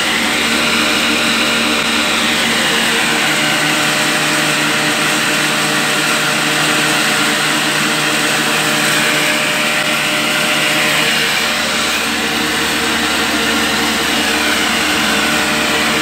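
Flour mill running steadily: a 20 HP electric motor driving a wheat grinder through V-belts. It gives a steady hum with a strong whirring hiss on top that swells and fades slightly.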